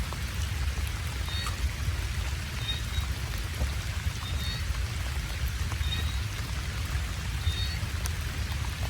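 Steady rain falling, with a short high chirp repeating about every second and a half.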